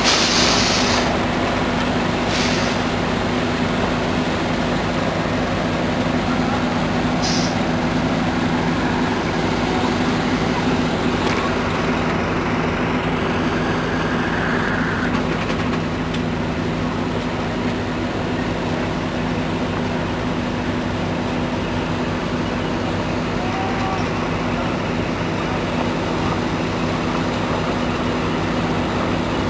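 Large diesel truck engine idling steadily, with a few short air hisses in the first several seconds.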